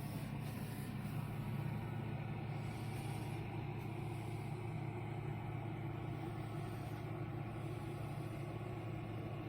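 Magic Mill five-tray food dehydrator running, its fan giving a steady low hum.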